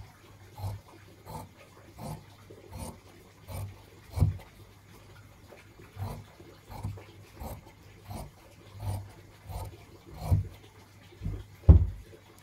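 Large tailor's scissors cutting cotton fabric strips on a cloth-covered table: a snip about every 0.7 seconds, with a short pause midway and the loudest snip near the end.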